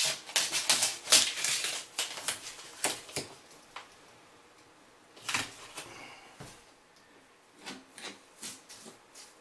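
Painter's tape being pulled off its roll and pressed along a wall: a quick run of short, scratchy strips in the first few seconds. Near the end, a few fainter strokes of a paintbrush spreading glue.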